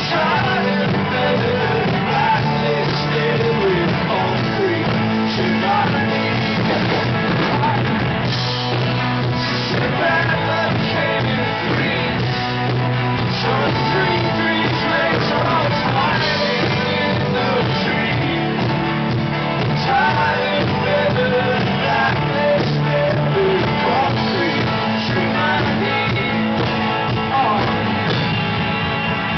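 Live rock band playing a song: a voice singing over guitars, bass and drums, continuous and loud.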